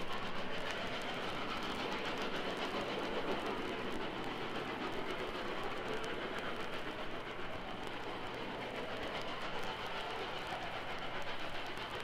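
Steam train running, a steady rushing noise, heard from an old vinyl LP recording.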